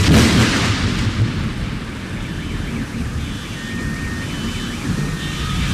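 Thunderstorm: rain hissing with rumbling thunder, starting suddenly with a loud crash. Faint short tones of different pitches sound over it from about three seconds in.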